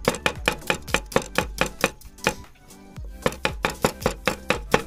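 A knife chopping rapidly on a cutting board, about five strokes a second, with a brief pause about halfway through before the chopping resumes.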